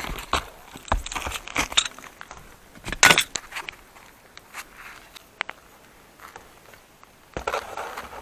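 Clatter and scraping as a section of chimney pipe is handled and fitted into place: irregular knocks and rattles, with the loudest scrape about three seconds in and another burst of rattling near the end.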